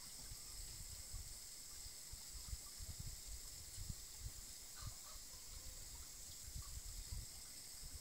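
Faint outdoor background: a steady high hiss with irregular low rumbles and no clear animal sound.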